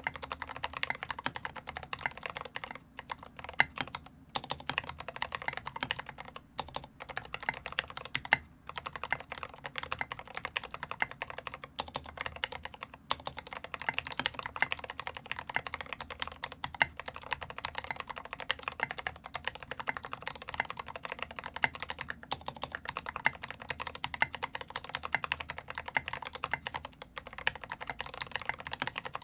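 Continuous fast typing on a LifeZone IRON Antique custom mechanical keyboard with lubed Gateron Ink Black linear switches, a brass plate and SA-profile keycaps, with a few brief pauses.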